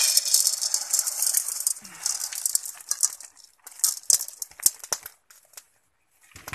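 Unroasted whole coffee beans poured into a hot metal wok: a dense rattling patter of beans hitting the metal and each other, thinning over about three seconds into scattered clicks as the last beans settle.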